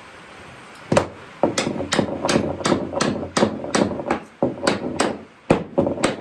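A hammer knocking oak chair parts together, about fifteen sharp blows at roughly three a second, starting about a second in. The joints are being driven home while the rocker is assembled.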